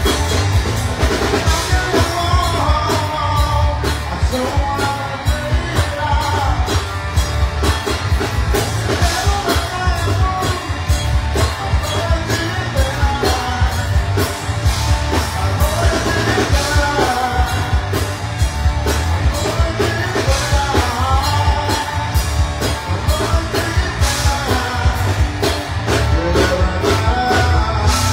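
Live rock band playing through a PA: a male singer over acoustic guitar, electric guitars and a drum kit keeping a steady beat.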